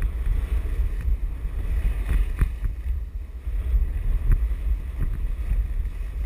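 Wind buffeting an action camera's microphone during a fast run down a groomed ski slope: a heavy, steady low rumble, with short scrapes of edges on packed snow scattered through it.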